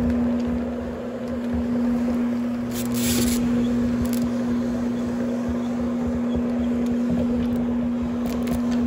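Electric pad-driven carpet-cleaning floor machine running steadily over carpet: a constant motor hum with the scrubbing of the pad under it. A brief high hiss about three seconds in.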